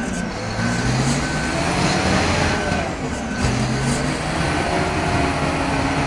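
Wheel loader's diesel engine working hard, revving up and down as it pushes, with an electronic warning beeper sounding about twice a second.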